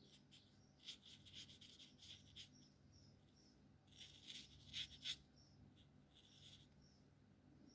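Alcohol marker nibs stroking across paper in two short runs of quick scratchy swipes, one about a second in and one around four to five seconds in, with faint short high chirps between them.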